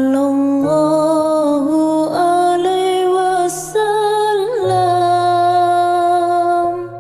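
Sholawat devotional song: a voice holding long, slowly changing notes over a steady low accompaniment.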